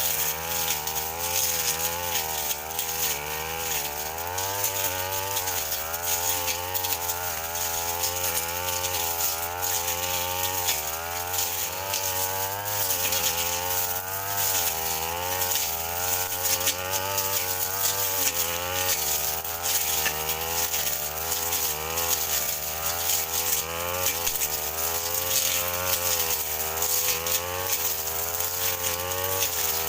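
Petrol brush cutter running hard while cutting bush and cogongrass, its engine pitch wavering up and down as the cutter bites into the growth and frees again.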